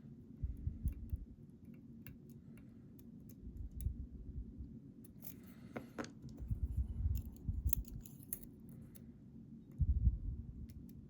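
Thin steel lock pick and tension wrench working the pins inside a custom challenge lock: scattered small metallic clicks and scrapes, with dull handling bumps, the loudest about ten seconds in.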